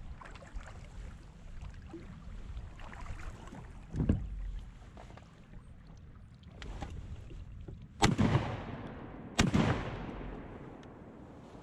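Two shotgun blasts about a second and a half apart, the first roughly two-thirds of the way in; each is a sharp crack followed by a long fading ring.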